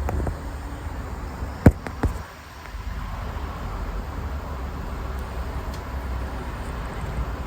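Honda Civic engine idling with a steady low rumble. Two sharp clicks come about two seconds in, and the rumble dips briefly just after them before steadying again.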